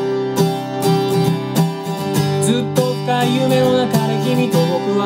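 Acoustic guitar strummed in a steady rhythm, playing the instrumental intro of a song.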